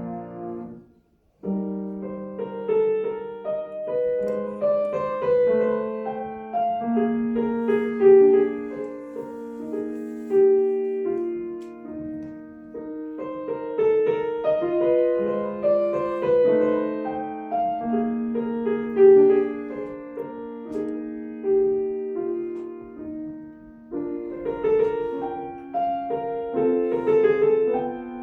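Solo piano playing a classical piece: a singing melody over sustained chords at a moderate pace, broken by a brief silence about a second in.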